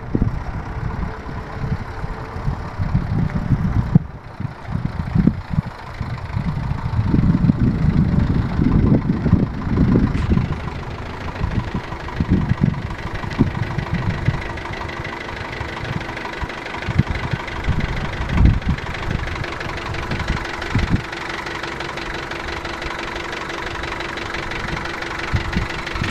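1994 Isuzu box truck's engine running as the truck moves, with uneven low rumbling in the first half, then settling to a steady idle with a constant hum for the last several seconds.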